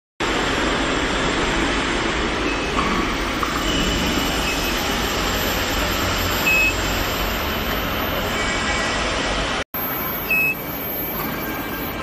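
Steady, loud machinery noise of a factory floor around an induction heating unit, with two short high beeps, one about midway and one near the end.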